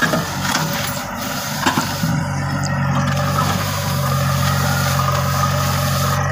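JCB backhoe loader's diesel engine running under load as the backhoe arm digs and lifts a bucket of rocks, the engine note steadying about two seconds in. A few sharp knocks of stones or the bucket in the first two seconds.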